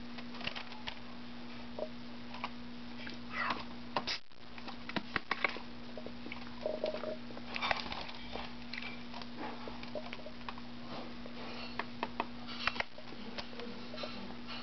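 Pet sparrow pecking at and flinging a noodle: irregular small taps and clicks, over a steady low electrical hum.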